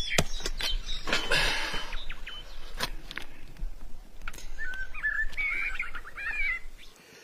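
A small axe chopping through goat meat and bone, a few sharp strikes in the first seconds, then birds chirping in quick high runs for a couple of seconds.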